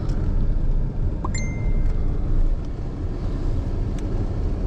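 Steady low rumble of a vehicle driving, heard from inside the cabin. A little over a second in comes a short electronic beep.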